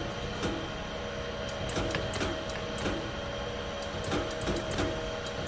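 Steady hum of an electric hydraulic hose crimper, with scattered sharp metallic clicks and knocks as a thick steel pipe is handled and set in the crimping dies.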